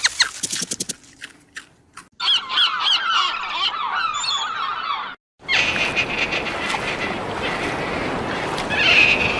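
A flock of domestic fowl, goose-like, calling in quick repeated honks that cut off suddenly about halfway through. After the cut comes a dense, noisy stretch of sound.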